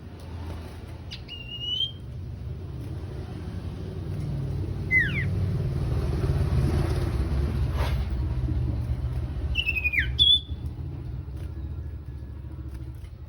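A sirtu bird giving three short, sharp calls about four seconds apart, each a quick sweep in pitch. Under the calls is a low rumble, like a passing vehicle, that swells in the middle and eases near the end.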